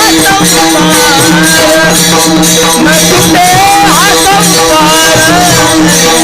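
Devotional kirtan music: a voice sings an abhang in long gliding phrases over a steady held drone, with an even drumbeat and jingling hand cymbals keeping the rhythm.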